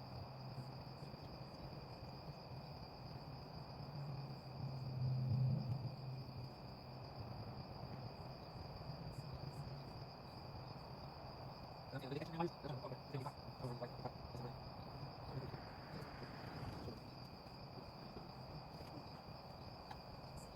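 Steady high-pitched chirring of night insects, with a steady low hum underneath. It swells briefly about five seconds in, and faint voice-like sounds come in around the twelve-second mark.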